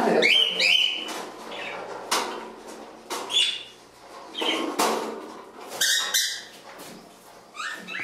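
Small cage birds chirping, with short, sharp calls about every second, among a few light clicks.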